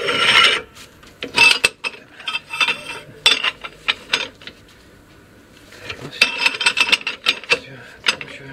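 Metallic clicking and clinking in several bursts from a wrench tightening the bearing nut on a GAZ-3308 truck's wheel hub as the hub is turned to seat the bearings.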